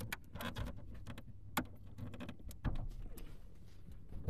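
Handling noise inside a car: scattered clicks and knocks with rustling as hands and the camera move against the carpeted footwell and interior trim, over a low rumble. The sharpest click comes about a second and a half in.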